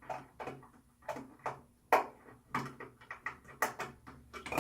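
Irregular clicks and knocks of a screwdriver working the small set screw on a metal towel-rack bracket, with the rack's fittings being handled.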